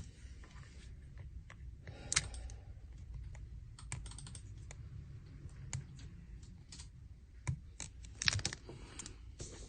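Typing on a computer keyboard: irregular keystroke clicks, with a quick cluster of keystrokes near the end, over a low steady hum.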